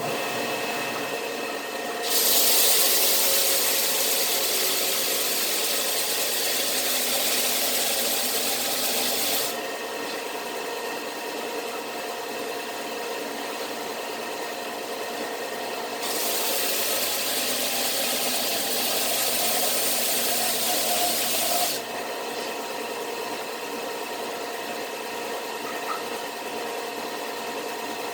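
Power sander running steadily, with wood pressed against the abrasive twice, each time giving a loud rasping hiss for several seconds before the motor runs on alone.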